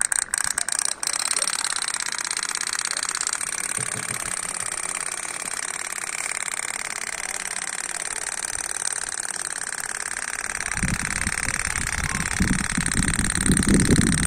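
Small DC motor of a homemade toy water-pump truck running steadily with a high buzzing whine, after a quick rattle of clicks in the first second. Irregular low rumbling joins in near the end.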